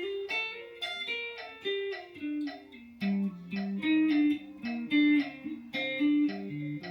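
Guitar played slowly: a line of single picked notes, about three or four a second, practised at reduced tempo.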